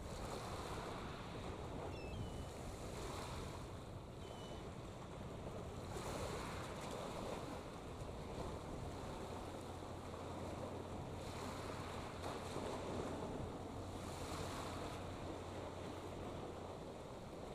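Wind gusting on the microphone over small waves lapping at the water's edge, with a steady low hum underneath. A few faint, short high chirps come in the first few seconds.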